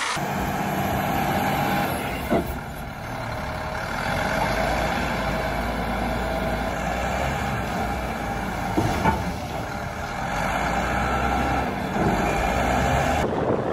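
Heavy diesel engine running steadily under load as a bulldozer is driven down off a transport truck, with a couple of short knocks.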